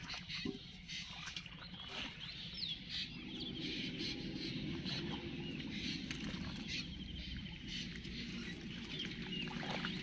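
Small birds chirping with short high calls, over the swishing and sloshing of someone wading through a pond thick with water hyacinth, which grows fuller from about three seconds in.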